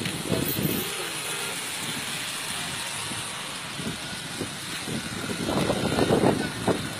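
Road traffic on a flooded highway: a steady rush of vehicle and water noise, with louder irregular surges in the last second or so.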